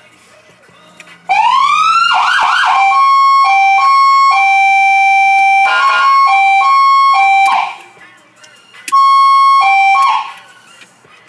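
Federal Signal PA300 electronic siren being switched through its tones. A rising wail starts about a second in and gives way to a few quick rising sweeps. It then alternates between a high and a low pitch in a hi-lo pattern, drops out for about a second, resumes, and stops near the end.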